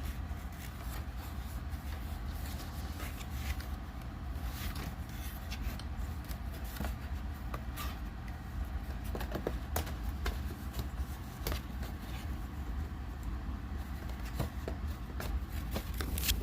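Packaging being handled as a smoke alarm is pulled out of its box: irregular rustling, scraping and small clicks, over a steady low hum.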